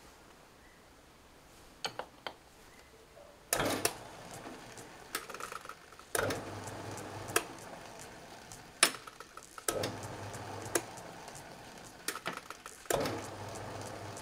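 An old metal lathe starts up about three and a half seconds in and runs, with a low motor hum and surges of metal-on-metal scraping that recur every few seconds, with sharp metallic clicks as the chamfering tool is brought to the spinning work.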